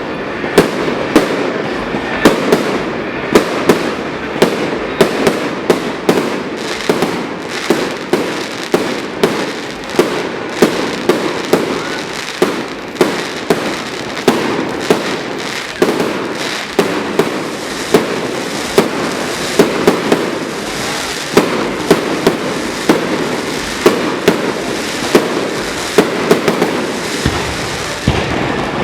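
Fireworks display going off continuously: a rapid, steady run of sharp bangs, about one or two a second, over constant crackling.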